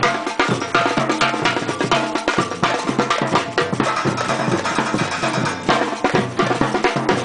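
Batucada percussion ensemble playing a samba: massed drums with low bass drum tones under a dense, driving rhythm of sharp strokes.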